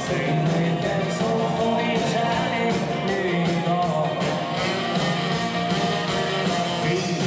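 A live band playing a swinging rock-and-roll number, with electric guitar, saxophone and a steady drum beat.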